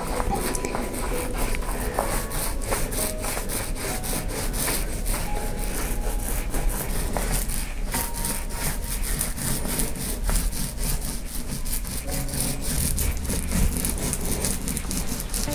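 Paint roller rolling decorative plaster onto a wall, stroke after stroke, a steady run of scraping over the textured surface.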